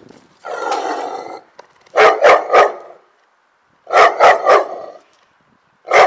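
Dog barking at the fence: one long, rough call, then two quick runs of three short barks, about three barks a second.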